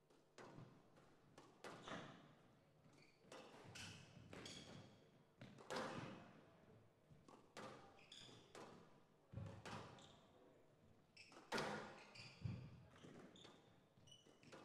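A squash rally: the ball is struck by rackets and slaps off the walls in irregular sharp hits about a second apart, with short high squeaks of court shoes between them.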